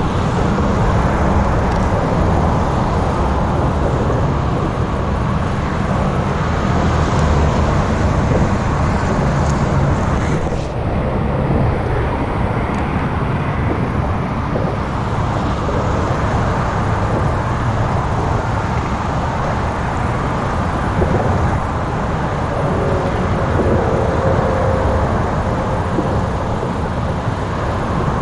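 Steady road traffic noise, a continuous low rumble.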